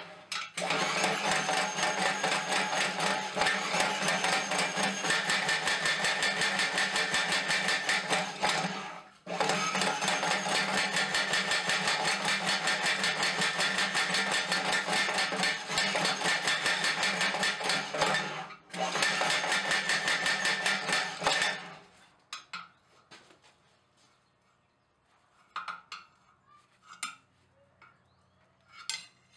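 A small homemade power hammer clamped to an anvil, hammering rapidly on a glowing steel tong blank over its bottom die. It runs in three long bursts of fast, even blows, with short breaks about 9 and 18 seconds in, and stops about 22 seconds in. After that there are only a few light knocks.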